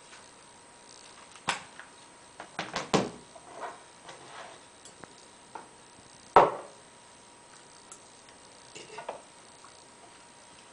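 Scattered knocks and taps of things handled on a wooden desk: a book being set down, and a table knife on a wooden cutting board. There is a quick cluster about three seconds in and a single sharp knock, the loudest, a little after six seconds.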